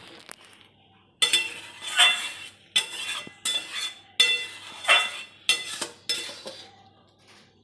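A spatula stirring and scraping thick jaggery-syrup fruit pickle around a metal kadai, about eight strokes roughly one every 0.7 s starting about a second in, the pan ringing faintly with each. The stirring keeps the thickening syrup from catching on the bottom of the pan.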